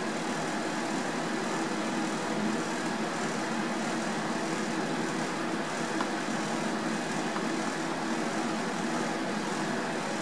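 Steady whir of ventilation fans moving air, even in level throughout, with a faint low hum in it.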